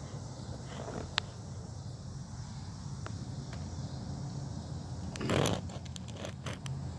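Phone handling noise against a door's glass and wire mesh screen: a single click about a second in, then a short scrape and a run of small clicks and taps at about five seconds, over a steady low outdoor rumble.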